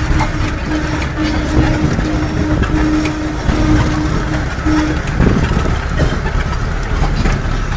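Rumble and rattle of a vehicle moving slowly along a rough street, heard from on board. A low beeping tone pulses on and off a little faster than once a second, and stops about five seconds in.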